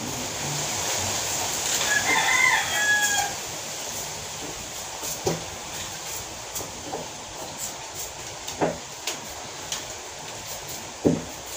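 A rooster crowing once, about two seconds in, one call of about a second and a half. Scattered light clicks and knocks follow.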